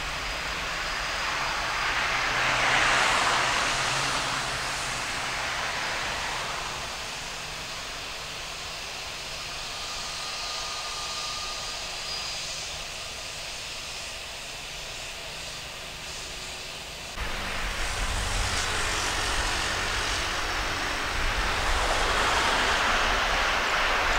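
Boeing 737-900ER's CFM56 jet engines at takeoff power: a roar that swells about three seconds in and fades slowly as the airliner climbs away. About seventeen seconds in the sound cuts abruptly to a louder low rumble, with a jet roar swelling again near the end as a Boeing 767-300 freighter comes in on approach.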